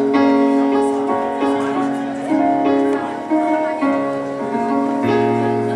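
Instrumental music of held chords, the notes changing about every second, with a low bass note coming in near the end.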